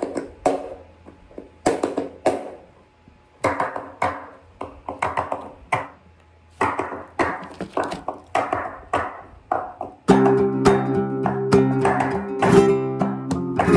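Flamenco bulería compás at a tempo of about 206: sharp percussive strikes from the palmas (hand-clap) practice track, in uneven accented groups. About ten seconds in, a flamenco guitar joins with loud, continuous strummed chords over the rhythm.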